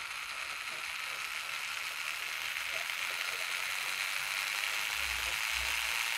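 Small 6 V DC gear motor running with a steady gear whir that grows gradually louder as the supply voltage is turned up and the motor speeds up.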